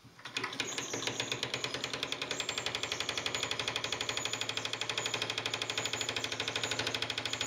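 Toy live-steam engine starting up and chuffing rapidly as it runs, driving a model airplane whirl ride. The chuffs start about a quarter second in, speed up over the first second or two, then settle into a fast, even rhythm.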